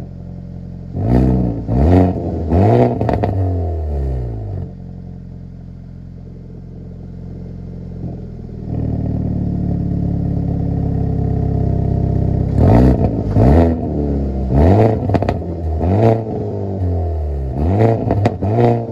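A 2023 Hyundai Elantra N's 2.0-litre turbocharged four-cylinder is revved in quick blips, its exhaust popping and crackling as the revs fall each time. Between the blips it idles, stepping up louder and steady about eight seconds in, then a second run of blips with crackles comes near the end.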